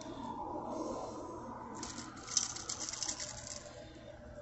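Small metallic clicks and jingles of pliers and the treble hooks of a small Rapala lure rattling together as the hooks are worked out of a largemouth bass's mouth, loudest from about two to three and a half seconds in.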